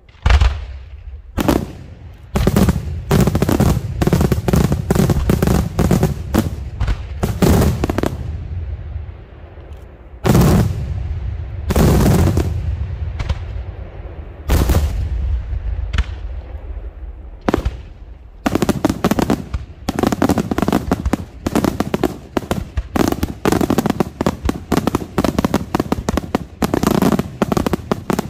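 Daytime aerial fireworks shells bursting in loud sharp bangs, each with a trailing echo: roughly one a second at first, a few big single bursts in the middle, then a rapid dense volley of bangs from about two-thirds of the way through.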